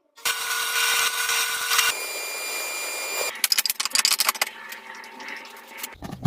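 Woodworking power tools in short cut-together bursts: a power tool running with a steady whine, a second machine with a different whine, then a run of quick clicks and knocks.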